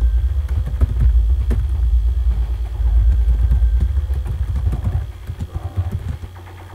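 Typing on a computer keyboard: a quick run of key clicks and thumps over a heavy low rumble. It stops shortly before the end.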